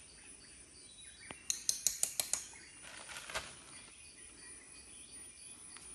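Insects chirping in a steady, evenly pulsing rhythm. About one and a half seconds in comes a quick run of about seven sharp clicks, and a short rustle follows a second later.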